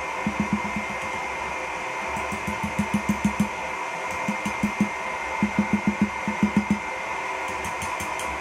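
Hand hammer striking red-hot 3/8-inch round steel bar on an anvil in quick runs of blows, about four or five a second, with short pauses between runs. The blows are low, dull thuds rather than a bright ring. Under them, the forge's blower runs with a steady rush.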